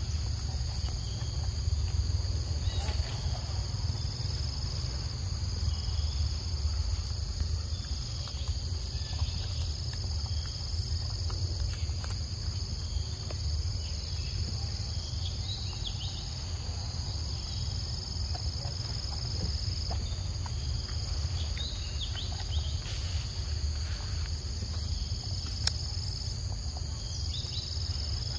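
Steady chorus of insects, a continuous high-pitched buzz that dips briefly now and then, over a low steady rumble, with a few faint short chirps and clicks.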